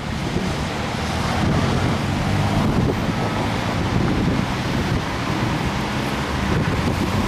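Fast-flowing floodwater rushing under a bridge as a steady roar, with wind buffeting the microphone.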